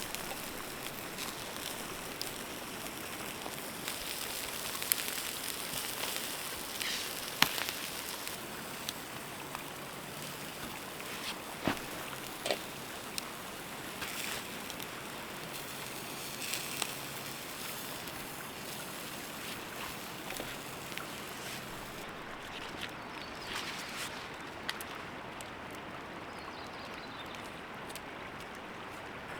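Campfire with food grilling over it: a steady sizzling hiss with scattered crackles and sharp pops from the burning wood. The hiss thins out about two-thirds of the way through.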